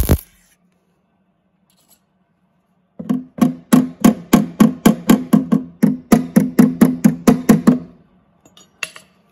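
A MIG welder's arc crackle cuts off just after the start. About three seconds in, a hammer starts striking the steel patch plate in the van's door step, a fast even run of about four to five ringing blows a second for roughly five seconds, tapping the plate into place.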